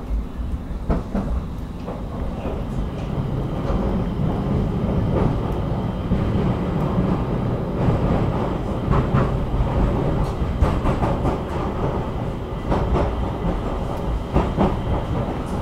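Stockholm metro train running, heard inside the passenger car: a steady rumble of wheels and car body with scattered sharp clicks and knocks. It grows louder over the first few seconds.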